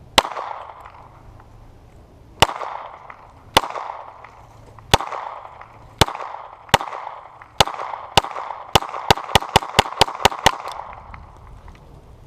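About sixteen shots from a .40 S&W Springfield XD(M) pistol, each followed by a short echoing tail; slow aimed fire for the first eight seconds or so, then a rapid string of shots emptying the magazine.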